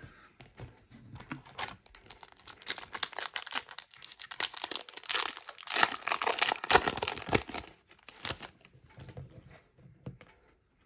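Foil trading-card pack wrapper being torn open and crinkled by hand, a dense crackling rustle lasting several seconds, loudest in the middle.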